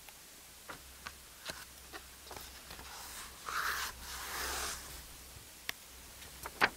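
Paper rustling close to a studio microphone, with a few small scattered clicks. The rustle is loudest between about three and five seconds in.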